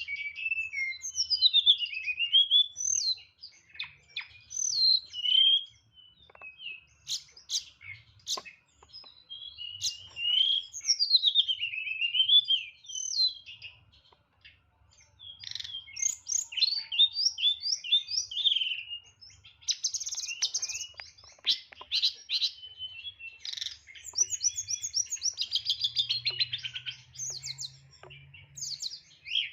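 Tledekan songbird singing a fast, varied song of whistled phrases, rapid trills and mimicked calls of other birds: the full "isian" repertoire sung in the clipped "nyeklek" style. Two brief pauses break the song, and it ends in fast repeated trills.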